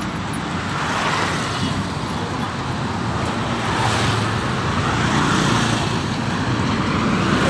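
Road traffic noise, steady, with vehicles including a motorbike passing close by, each pass swelling and fading.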